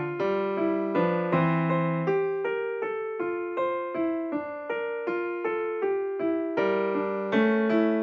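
Background music played on a keyboard: a gentle melody of evenly struck notes, about two or three a second, over lower bass notes.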